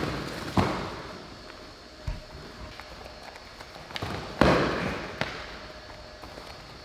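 Scattered thuds and slaps of two people sparring in MMA gloves on gym mats: feet, bodies and strikes landing, the loudest a little past four seconds in.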